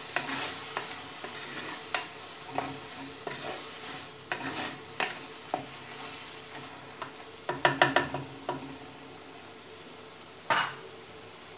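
Wooden spatula stirring okra in spice masala in an unglazed clay pot, scraping and knocking against the pot, over a faint sizzle of the frying masala. A quick run of knocks comes about eight seconds in, and one more near the end.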